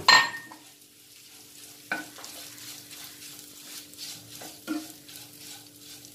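Wooden spatula stirring flattened rice (aval) as it roasts in ghee in a nonstick pan: a soft dry scraping and light sizzle. There is a sharp knock at the very start and a few lighter knocks against the pan about two seconds and four to five seconds in.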